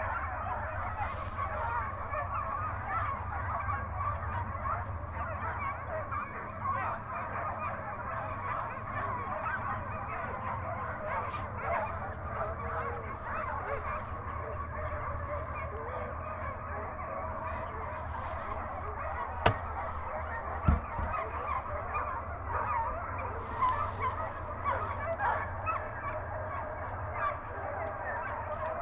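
A pack of deer hounds in full cry running a deer, heard from a distance as a continuous chorus of overlapping baying voices. Two sharp knocks come about two-thirds of the way through.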